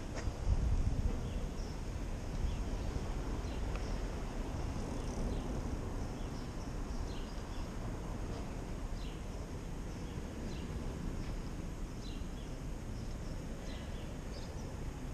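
Street ambience with the scooter standing still: a steady low rumble of traffic, with short, high bird chirps repeating every second or so throughout.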